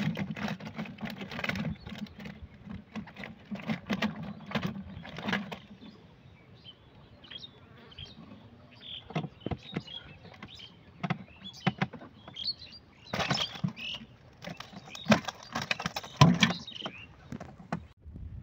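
Woven bamboo fish trap rattling and knocking against wooden boat planks as it is handled and tipped: a busy run of clicks at first, then scattered knocks, the loudest near the end. Birds chirp faintly in the background.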